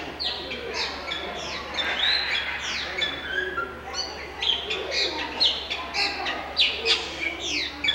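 A chorus of many small birds chirping and calling at once: a dense run of quick, falling chirps overlapping one another.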